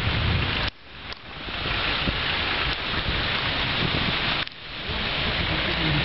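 Blizzard wind rushing across the microphone in a loud, steady roar of noise. It cuts out abruptly twice, about a second in and again near the fifth second, and each time swells back up within a second.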